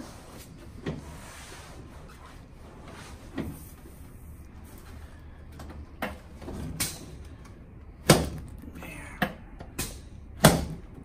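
Chiropractic treatment table knocking and clunking as a patient turns over onto her back: a scattered series of knocks, the two loudest near the end, with soft rustling in between.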